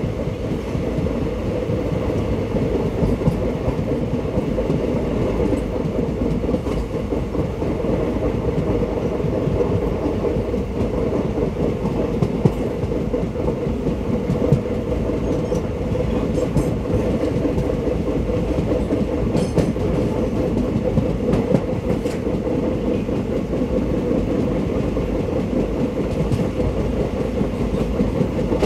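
Indian Railways ICF passenger coach running along the track, heard from on board: a steady rumble of wheels on rails with occasional sharp clicks.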